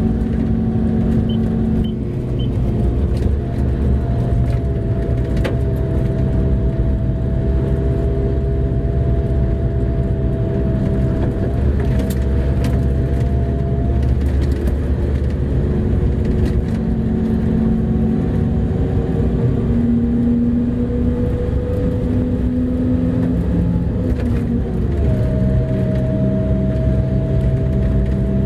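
Mining haul truck's diesel engine running under way, heard from inside the cab: a steady deep drone with a high whine whose pitch dips and shifts briefly near the end.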